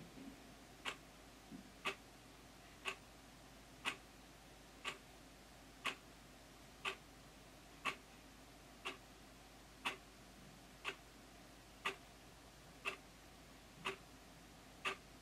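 Wall clock ticking steadily, one sharp loud tick each second.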